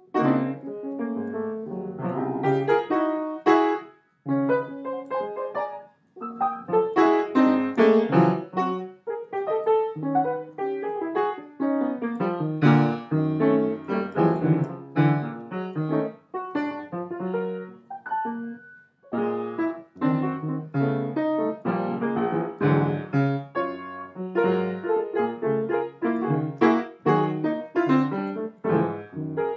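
Piano music: a run of struck notes and chords, broken by a few short pauses.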